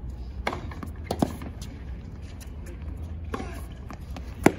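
Tennis rally heard from courtside: sharp pops of racket strings on the ball and ball bounces, a second or more apart, with the loudest hit just before the end.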